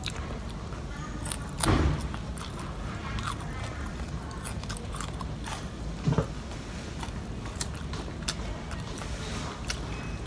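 A person chewing and biting crispy fried catfish, with small crunching and mouth clicks and two louder crunches about two and six seconds in.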